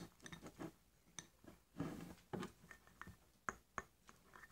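Faint slime mixing in a container: soft, uneven stirring noises with a few light clicks from the mixing tool, two of them close together near the end.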